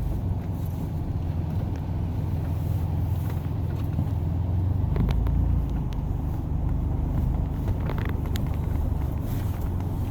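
Truck running with a steady low rumble heard from inside the cab, swelling briefly about halfway through, with a few faint scattered ticks.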